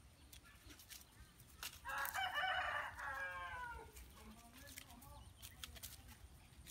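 A rooster crowing once, starting about two seconds in and lasting nearly two seconds, its pitch falling away at the end.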